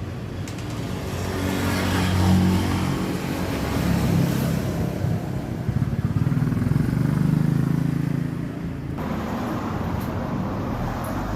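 Yamata FY824-V4 industrial buttonhole sewing machine running, a busy mechanical hum of the motor and stitching mechanism. About nine seconds in the sound changes abruptly and becomes duller.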